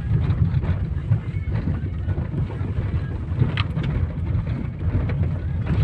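Cabin rumble of an Opel Zafira driving over a rough road, with a few light knocks from the front suspension about three and a half seconds in. After new struts the owner hears that a quieter knock remains somewhere.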